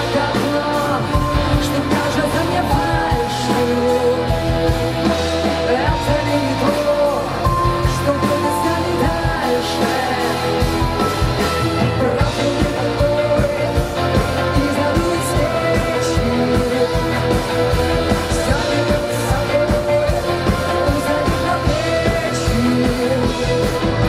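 Live rock band with violin playing a song: electric guitars, bass and drums under a violin and a singing voice, loud and continuous.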